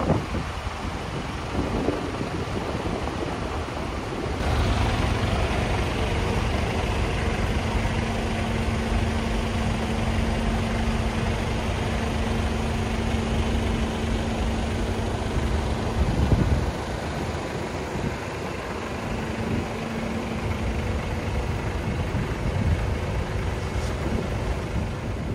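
Diesel engine of a decorated Japanese art truck (dekotora) idling with a steady low rumble, growing louder about four seconds in.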